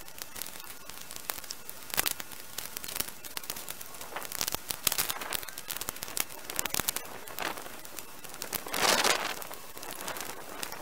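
Cut branches and twigs crackling and snapping as they are gathered by hand and stuffed into a large sack, with a louder, longer rustle of brush about nine seconds in.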